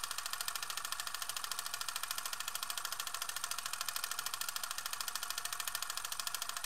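Electronic outro sound for an end card: a rapid, evenly pulsing hiss, high-pitched with little bass and no change in rhythm.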